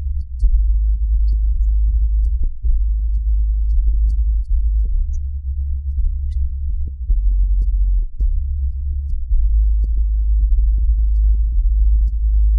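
Background electronic music: a deep, sustained bass line under light ticking percussion.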